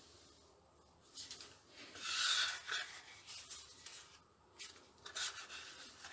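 Cardstock being handled and folded by hand, the card sliding and rubbing against a cutting mat in a few strokes, the loudest about two seconds in.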